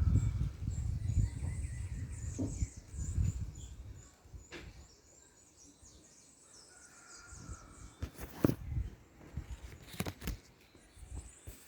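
Hummingbird giving many short, high chirps over and over. A low rumble fills the first few seconds, and a few sharp clicks come in the second half.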